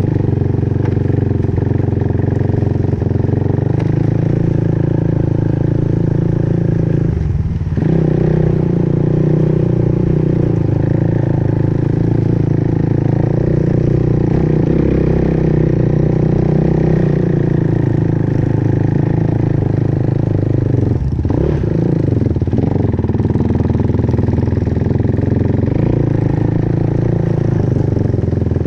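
Engine of an off-road vehicle running steadily with some clatter, easing off briefly about seven and a half seconds in and again around twenty-one seconds before picking back up.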